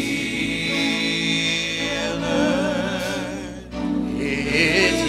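Church praise team singing a slow gospel song in long, wavering held notes over sustained electric keyboard chords, with a brief break between phrases about three and a half seconds in.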